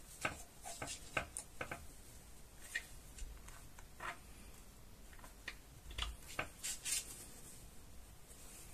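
Fabric rustling and rubbing as hands fold and fit a mitten's lining into its outer fabric, with scattered light ticks and taps.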